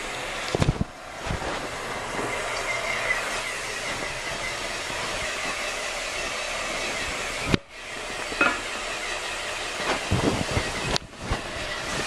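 Steady rushing hiss of a 1986 Kohler Highline toilet tank refilling through its fill valve. Several knocks and bumps break through it, the sharpest about seven and a half seconds in.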